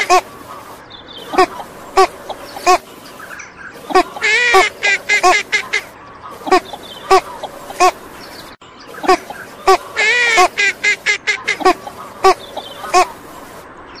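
Female northern shoveler quacking in repeated runs: a drawn-out arching quack followed by a quick series of short quacks, coming in bursts every second or two.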